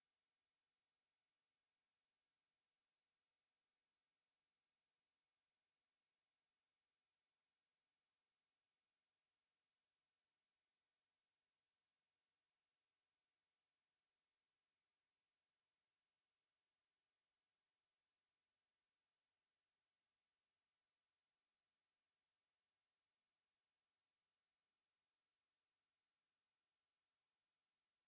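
A pure 11608 Hz sine-wave test tone, a single steady high-pitched whistle that holds without change.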